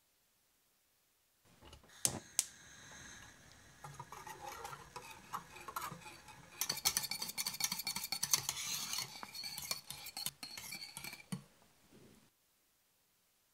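A stainless steel saucepan set down on a stove with two ringing metallic clinks about two seconds in, then a wire whisk beating custard in the pan, rapid clicking and scraping against the metal. The whisking gets busier about halfway through as the custard heats and thickens.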